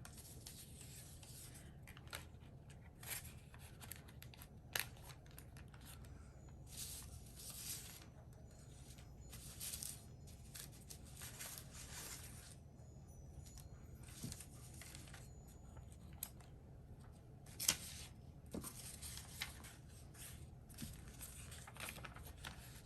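Sheets of paper being handled and prepared: faint, intermittent rustling swishes of paper with a few sharp clicks, the loudest about three-quarters of the way through.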